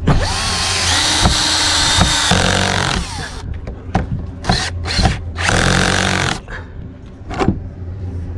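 Cordless drill driving screws into an RV grab-handle mounting plate: one long run of about three seconds that rises in pitch as it spins up, then three shorter bursts.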